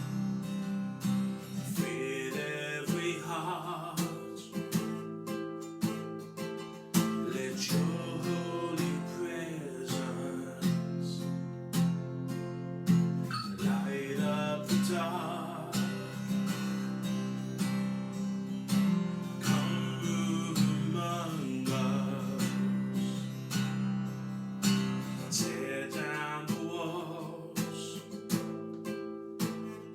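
Music: a strummed acoustic guitar with a voice singing phrases over it.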